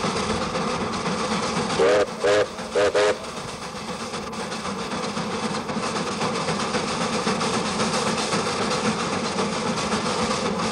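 Steam locomotive running, heard from the cab as a steady rumble with wheels clattering on the rails. About two seconds in, its steam whistle gives four short toots in quick succession.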